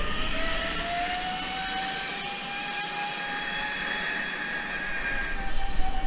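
Zipline trolley pulleys whirring along the steel cable as a rider slides down it: a high whine that climbs a little at first as the rider gathers speed, holds steady, then drops in pitch near the end as the rider slows.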